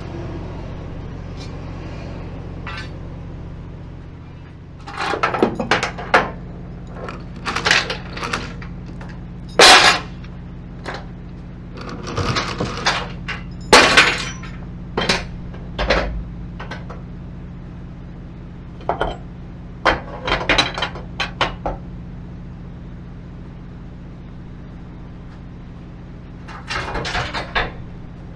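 Steel tie-down chains clanking and rattling against the flatbed deck and the reels as the cable reels are chained down. The clatter comes in bursts starting about five seconds in, with a pause before a last burst near the end, over a steady low hum.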